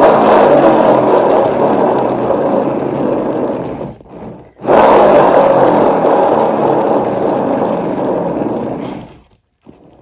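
Paint-pour spinner turntable spun twice by hand, running with a loud whirr. Each spin starts loud and fades as the turntable slows. The second spin starts about halfway through and dies away near the end.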